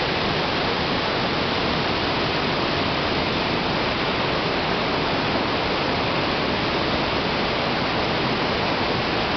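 Whitewater rapids rushing over rocks in a swollen river: a loud, steady rush of turbulent water.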